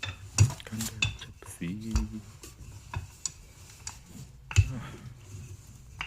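Kitchen utensils knocking and clinking against a dish and work surface while dough is worked, in several separate knocks, the loudest about half a second in and again about four and a half seconds in.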